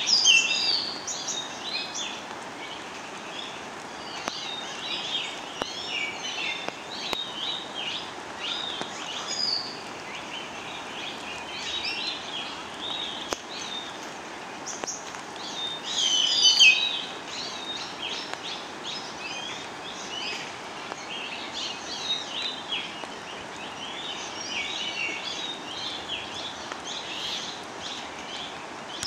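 Wild birds chirping and singing, many short calls and trills that are loudest near the start and about halfway through, over a steady background hiss.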